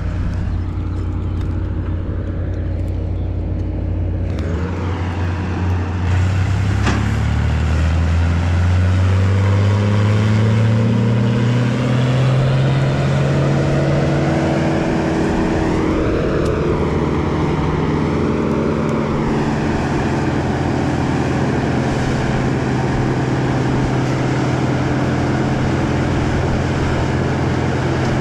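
An engine running: it hums steadily at a low speed, then revs up smoothly over several seconds starting about six seconds in, and holds a steady higher speed.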